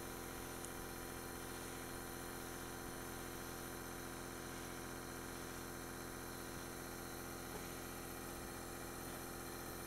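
Oxygen machine's compressor running with a steady hum of several constant tones.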